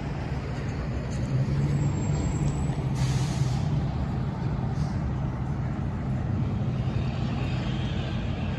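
Fire truck's diesel engine running, getting louder about a second in, with a short hiss of air brakes about three seconds in.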